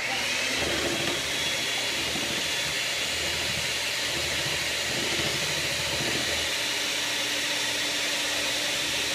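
Electric hand mixer running steadily at speed, its beaters whisking chocolate cupcake batter of creamed butter, sugar and chocolate in a mixing bowl.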